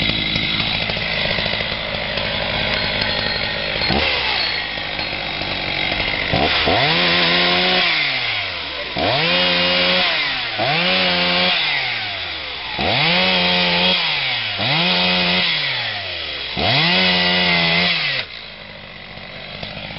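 Chainsaw running steadily, then revved about six times as it cuts a log; each time the pitch jumps up sharply and sinks away over a second or so. It drops back to a lower level near the end.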